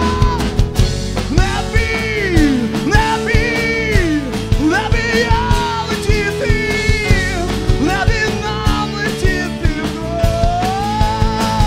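A live rock band playing: drum kit keeping a steady beat under electric bass, acoustic guitar and a Yamaha keyboard, with a melody line that slides up and down in pitch.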